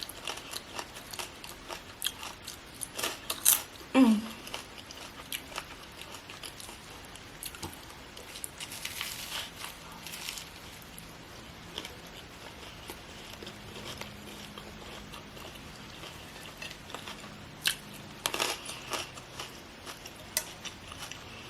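Close-up eating sounds: bites into a toasted BLT sandwich with crisp pork bacon, then chewing, heard as scattered soft crunches and mouth clicks, a little louder near the start and again near the end.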